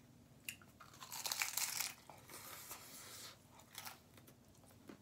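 Tacos being bitten and chewed close to the microphone: a loud crunching burst about a second in, then quieter chewing with scattered clicks and crinkles.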